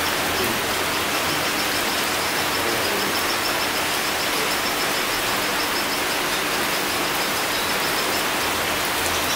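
Steady rain falling on tree foliage, an even hiss with no letup.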